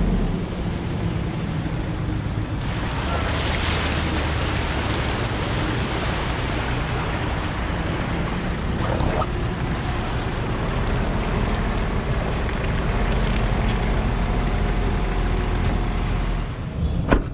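Wind rushing over an outside-mounted camera's microphone, mixed with the engine and tyre noise of a Nissan Navara NP300 ute driving slowly along wet sand and shallow water. A brief knock comes near the end.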